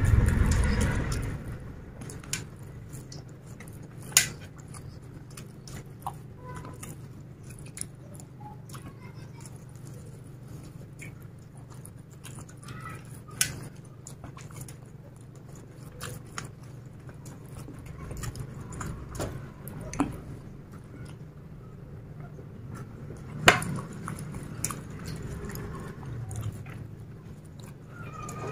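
Chicken biryani being eaten by hand: soft chewing and mouth sounds with a few sharp clicks scattered through, over a steady low hum. A louder noisy burst comes right at the start.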